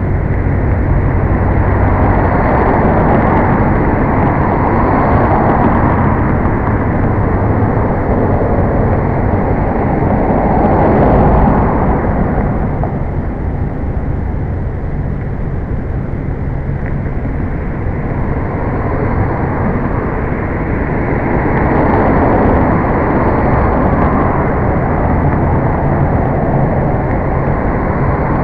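Road traffic on a busy street, cars swelling and fading as they pass every several seconds, with a steady low hum underneath, picked up by the toy drone's small onboard camera microphone.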